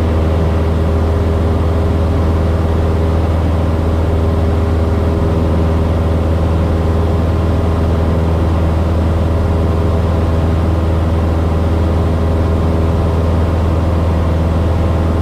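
Cessna 172S's four-cylinder Lycoming engine and propeller droning steadily at cruise power, heard from inside the cabin.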